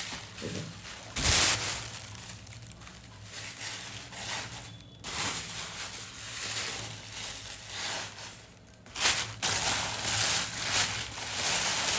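Plastic bags crinkling and rustling as they are handled and pushed into a hanging bag-storage organizer, with two louder crackles, about a second in and about nine seconds in.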